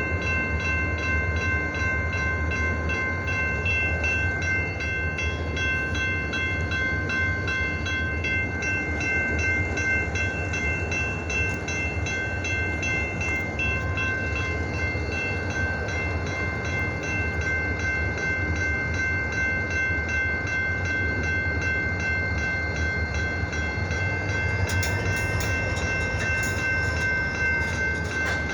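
Diesel freight locomotives running with a steady low rumble, with steady high ringing tones over it. Near the end a faint tone bends up and back down.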